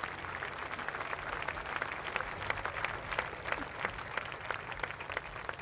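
Quiet applause, with separate hand claps audible.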